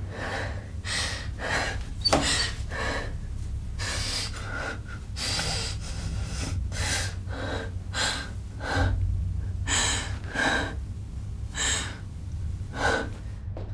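A woman's sharp, gasping breaths, irregular at roughly one to two a second, over a steady low hum.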